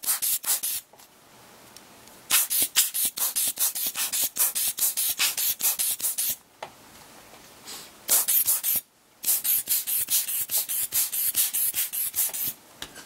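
Quick rubbing strokes, about five a second, scrubbing dust off the inside of a smartphone's housing. They come in runs, broken by short pauses about a second in, near the middle and about nine seconds in.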